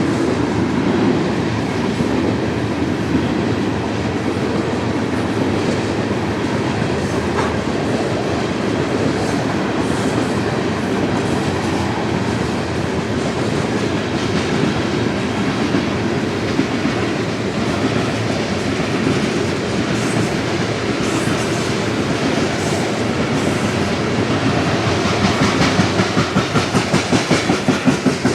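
Union Pacific coal train's cars rolling past: a steady rumble of steel wheels on rail. Near the end a fast, regular clickety-clack sets in as the wheels pass over rail joints.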